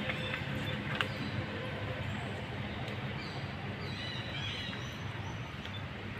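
Outdoor background noise: a steady low hum, with a few faint short high-pitched chirps in the second half.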